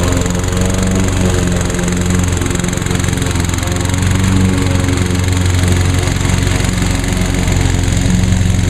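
Walk-behind lawn mower's single-cylinder Honda GCV160 engine running steadily at working speed.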